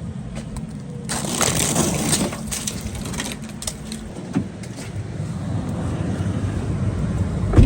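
A vehicle engine idles steadily while loud crunching and scraping, full of sharp clicks, starts about a second in and thins out over the next few seconds; a single thump comes near the end.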